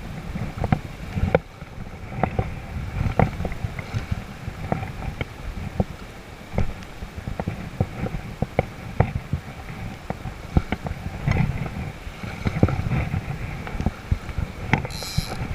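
Wind buffeting the microphone as a steady low rumble, with many irregular sharp clicks and knocks over it.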